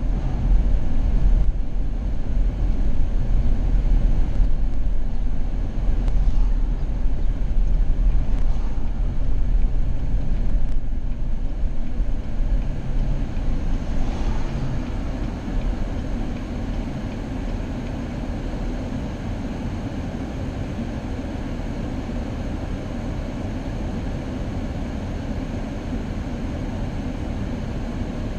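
Steady road and engine noise of a moving car, a low rumble that drops a little in level about halfway through.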